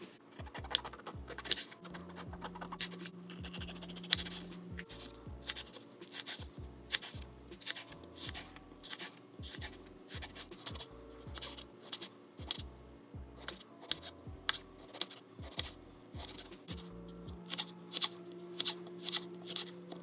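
Kitchen knife slicing colored bell peppers on a cutting board: a run of sharp, irregular knocks, about one or two a second, over soft background music.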